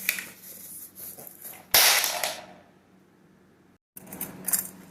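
Unpacking a new blind and its cardboard box: light rustling, then one sharp, loud clatter just under two seconds in that dies away within half a second, and small handling noises near the end.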